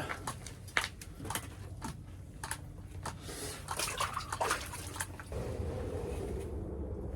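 Water splashing and dripping at an ice-fishing hole, with scattered sharp clicks and taps. A steady low hum comes in about five seconds in.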